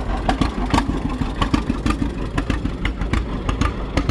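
An engine running at idle, a steady low rumble broken by many sharp, uneven clicks.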